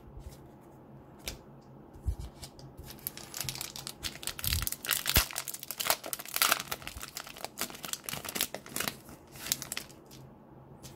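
Foil wrapper of a Select AFL Footy Stars trading card pack being torn open and crinkled by hand: a few scattered rustles, then about three seconds in a dense crackling of foil that lasts several seconds before it stops near the end.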